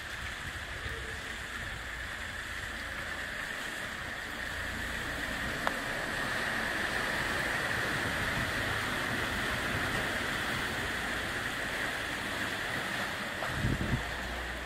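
Van driving through floodwater, its wheels and body churning and splashing the water: a steady rushing sound that swells in the middle as the van passes, then eases off. A low rumble comes in near the end.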